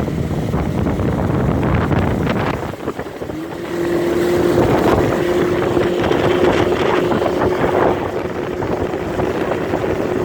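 Motorboat under way: the engine running under heavy wind buffeting on the microphone. A steady engine tone comes in about three seconds in and holds.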